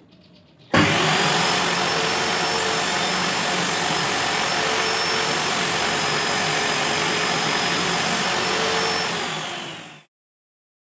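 Table saw switched on, running with a steady whine while a plywood board is pushed through to cut a groove, then switched off and winding down near the end.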